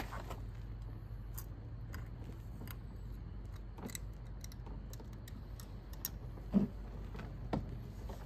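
Scattered light clicks and taps of hands working at a push lawnmower's engine, with a dull thump about six and a half seconds in and a softer knock a second later, over a steady low hum.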